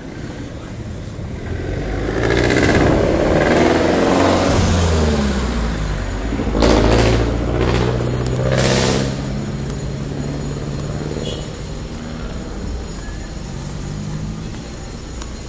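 Street traffic: a motor vehicle's engine is heard loudly for several seconds, its note falling as it goes by, and then engines keep running more quietly.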